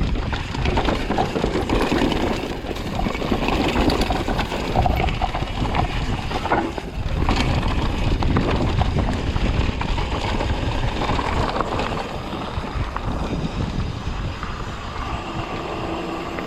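Mountain bike riding down a bike-park trail: a constant rumble of wind on the microphone and tyres on rough ground, with frequent knocks and rattles from the bike. A steady hum joins in near the end.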